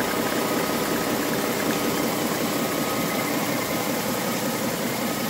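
1916 Simplex six-cylinder engine being turned over without firing by a 3 hp electric motor through belts and pulleys, to run in its new pistons, rings, timing chains and babbitt bearings. The spinning crankshaft and rods make a steady mechanical running clatter with a thin steady whine.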